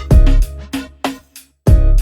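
Background music: an instrumental beat with heavy bass drum hits, which drops out briefly about one and a half seconds in before the beat comes back.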